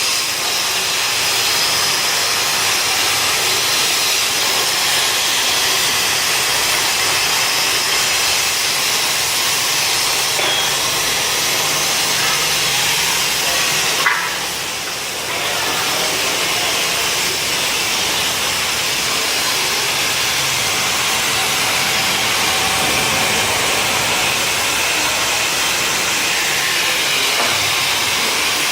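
Cutmaster plasma cutter's torch on a CNC table hissing steadily as it cuts steel plate. About halfway through there is a sharp click, and the hiss drops for about a second before the cut resumes.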